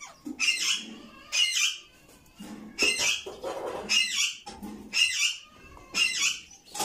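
Lutino Indian ringneck parakeet squawking over and over, a harsh call about once a second.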